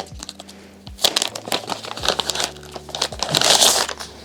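Packaging crinkling and rustling as it is handled and opened, with scattered sharp clicks and a louder burst of rustling about three and a half seconds in.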